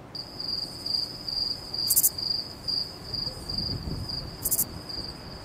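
Crickets chirping steadily in a high, pulsing trill about twice a second, over a low background rumble, with two brief high hissing bursts.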